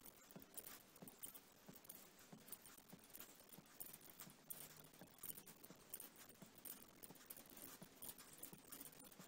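Faint, irregular light clicking and tapping of metal knitting needles as a row of stitches is purled.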